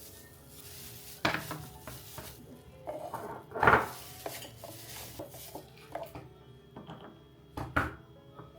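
Kitchen dishes and utensils clattering: a string of clinks and knocks, the loudest a little under four seconds in, with other strong knocks near the start and near the end.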